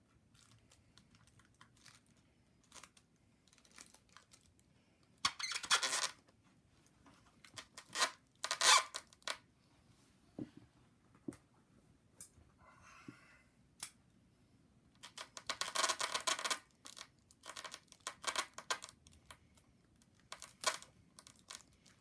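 Adhesive tape being peeled and torn off a packaged figure, in several rasping pulls of about a second each, with small clicks and plastic handling noises between them.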